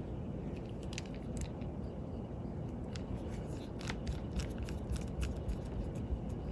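Scattered small clicks and taps from handling a wristwatch and small watchmaker's tools, more frequent in the second half, over a steady low background rumble.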